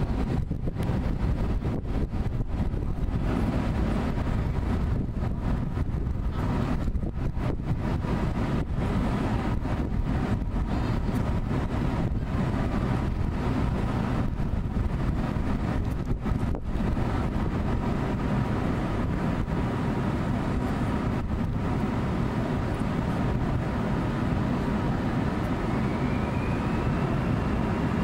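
Airbus A321's CFM56 turbofan engines running at taxi power: a steady low rumble with a faint whine. Near the end a whine rises in pitch and then holds as the engines spool up for the takeoff roll.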